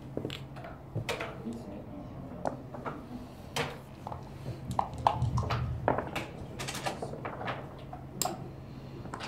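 Sharp clicks and clacks of backgammon play: checkers set down and slid on the board, and dice shaken and rolled onto it, with a denser rattle about five seconds in.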